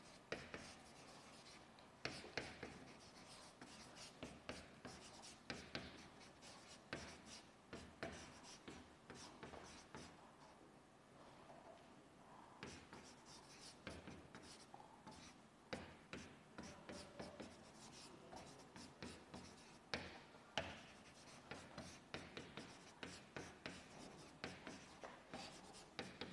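Faint handwriting: irregular runs of short writing strokes with brief pauses, as a lecturer writes out notes comparing two herbs.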